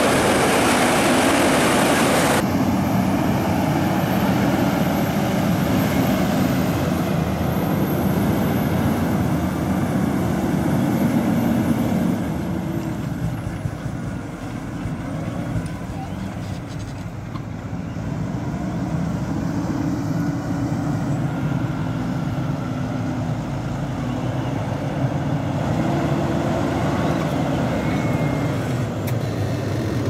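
Claas tractor's diesel engine running steadily under heavy load while pulling a reversible plough through the soil. The sound changes abruptly about two seconds in and eases somewhat around the middle before building again.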